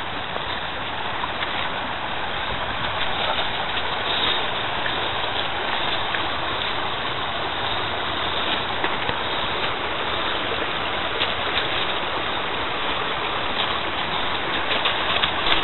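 Shallow river rushing steadily over a riffle.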